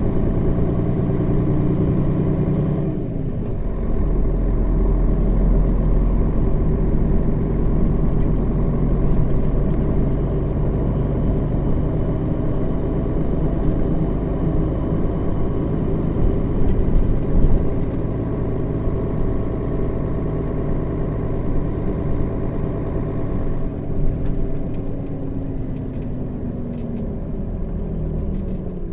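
Diesel engine of a Setra S 315 NF city bus with a manual gearbox, running under way. Its note falls about three seconds in, then it runs on strongly and steadily. Near the end the engine note slowly falls away again.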